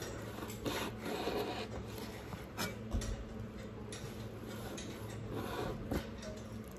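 Hand tool scraping and rubbing against a wall as a bike hook fitting is worked in by hand, with a few sharp clicks along the way.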